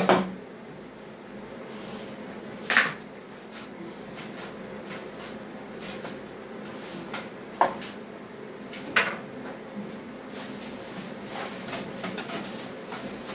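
Four short, sharp knocks and clacks of hard objects being handled, spread a few seconds apart, over a faint steady hum.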